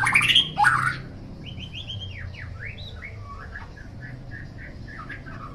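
Murai songbird singing: loud rising whistled notes in the first second, then a quieter run of quick chirps with a few falling sweeps.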